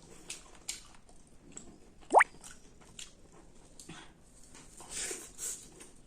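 A person chewing food close to the microphone, with soft crunches and wet mouth clicks scattered through. About two seconds in, a short, loud rising squeak stands out.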